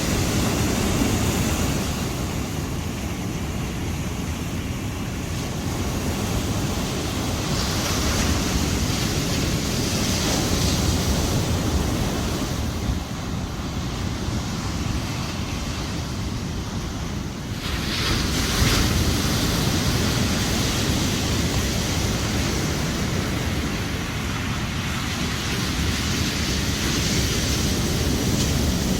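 Sea surf: waves washing onto a beach, rising and falling in slow swells several seconds apart, with wind buffeting the microphone.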